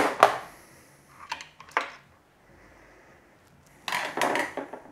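Steel engine parts clinking and clattering on a workbench as a 2JZ connecting rod and its cap are handled: two sharp clinks at the start, two lighter ones about a second and a half in, and a short rattling cluster about four seconds in as the rod is picked up.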